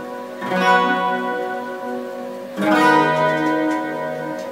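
Guitar playing two strummed chords about two seconds apart, each left to ring out and fade.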